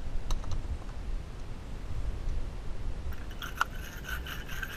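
Corroded battery terminals being scraped clean with a hand-held terminal cleaning tool. A few sharp clicks come near the start, then a rhythmic scraping of about five or six strokes a second begins about three seconds in.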